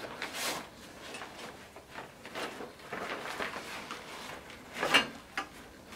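Fabric seat back rustling and being handled as it is slid onto a metal seat frame, with a short knock about five seconds in.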